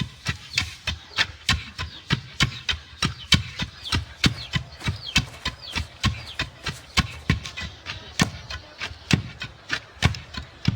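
Steady interlocking rhythm of sharp knocks, about four a second, each with a dull low thud, like tools or wooden implements striking in time.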